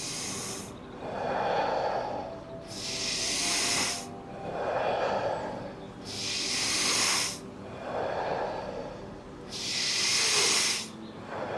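A person breathing deeply and audibly in a steady paced rhythm during a breathing exercise. A sharper, hissing breath alternates with a lower, breathier one, about one full breath in and out every three seconds, three to four times.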